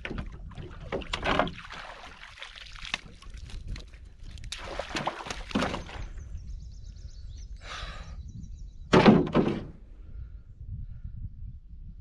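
Irregular knocks, thumps and scuffing of gear and body movement in a canoe, the loudest a heavy thump about nine seconds in.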